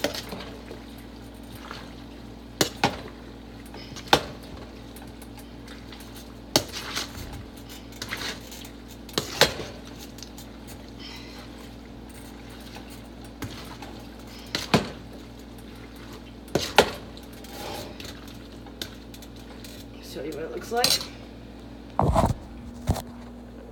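A metal spoon clinks and knocks against a speckled enamel stockpot as a pot of goulash is worked: about a dozen sharp clinks at irregular intervals over a steady low hum, with a heavier thump near the end.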